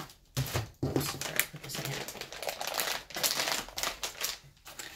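Packaging crackling and rustling in the hands: a seed packet and other packs handled, giving a run of irregular sharp crinkles.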